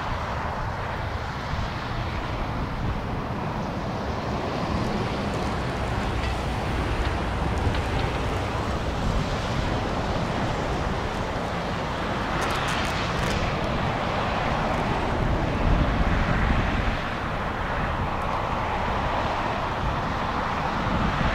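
Boeing 737-800 jet on final approach, its CFM56 engines a low rumble slowly growing louder, mixed with wind buffeting the microphone.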